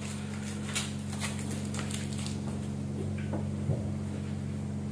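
A steady low hum with several evenly spaced tones, over scattered light clicks and rustles of handling.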